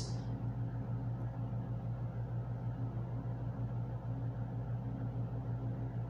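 Steady low machine hum with no change in pitch or level, and no other distinct sound over it.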